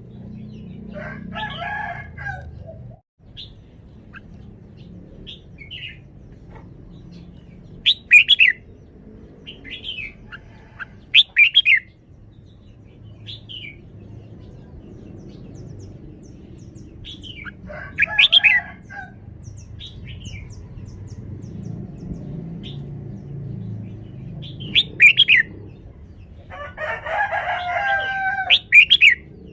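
Red-whiskered bulbul singing: short, loud, whistled phrases repeated every few seconds, with a few longer, lower calls between them.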